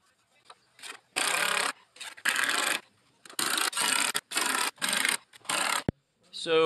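Cordless drill/driver driving screws through a 2x4 into a plywood cabinet bottom, in a series of short bursts of about half a second each.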